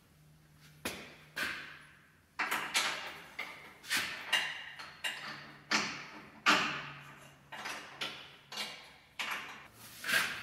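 Irregular metallic clanks and knocks, about two a second, from hand work on a lifted Jeep JK's rear axle and suspension parts, each knock ringing briefly.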